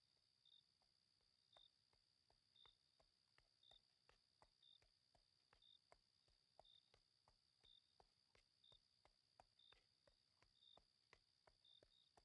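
Very faint night ambience: a steady high cricket trill with a short chirp about once a second, and soft clip-clop of horse hooves at a walk, two or three light knocks a second.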